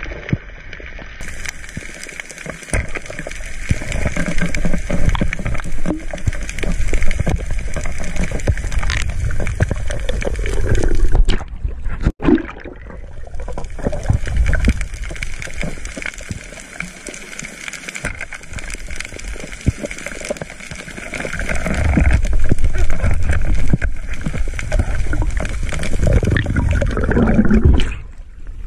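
Water gurgling and rushing as heard through an underwater camera during a dive. It breaks off briefly about twelve seconds in and again near the end.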